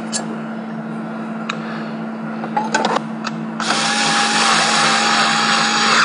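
A cordless drill/driver runs for about two seconds, starting about three and a half seconds in, with a steady motor whine as it drives a screw to fasten a power center's cover panel. Before that come a few light clicks as the metal cover is handled.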